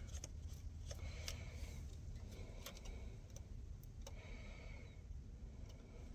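Faint, irregular metallic ticks and clicks, a dozen or so, from a small nut driver with a 7mm socket and the little terminal nuts and washers as the wires are taken off a CAT 3176 diesel injector.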